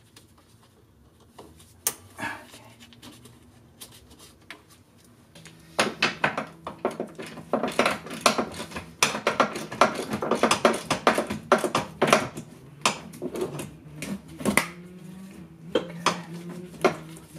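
Wrench turning a nut on a golf cart's rear leaf spring hanger bolt: a couple of isolated metal clicks, then from about six seconds in a dense run of fast, irregular metallic clicking and clinking, with a faint steady hum underneath.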